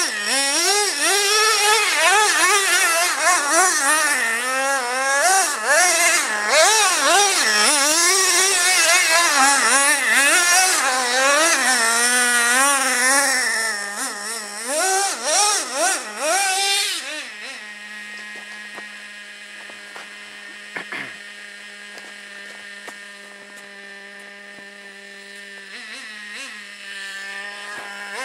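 Traxxas Revo RC monster truck's 2.5 cc two-stroke nitro engine revving up and down rapidly under throttle as it is driven, then, about seventeen seconds in, dropping to a quieter, steady idle.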